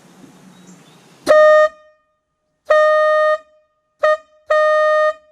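The number 5 bell of a Nathan K5 train air horn, repaired by welding and bored out to a big bore, blown in four blasts: short, long, very short, long. Each blast is a single steady tone that starts and stops sharply.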